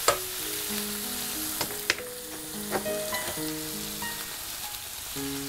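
Chopped onions sizzling in hot oil in a frying pan, with a few clicks of a wooden spatula against the pan as they are stirred. The onions are being fried with chilli powder and salt as a spice base.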